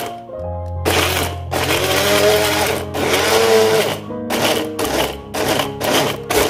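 Electric blender grinding a wet spice paste of shallots, garlic, ginger, galangal, chillies and turmeric. The motor starts and stops several times, in shorter bursts in the second half, its whine rising and falling as it works through the paste. Background music plays underneath.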